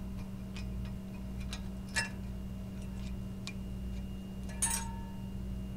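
Light, irregular metal clicks and taps from a flathead screwdriver prying a brake-pad hardware clip off the caliper bracket, with a sharper click about two seconds in and a ringing metallic clink near the end. A steady low hum runs underneath.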